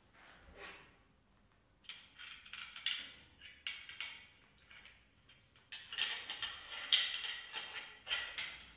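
Faint metallic clicks and scraping as a steel-wire winch cable is handled and a metal pulley and carabiner are fitted together. The clicks are sparse at first and grow denser near the end.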